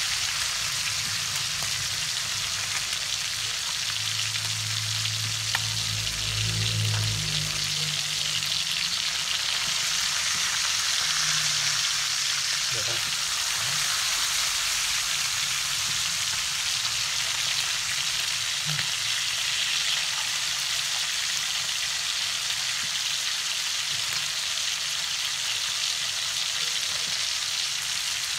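Lizardfish pieces frying in shallow oil in a pan, sizzling steadily.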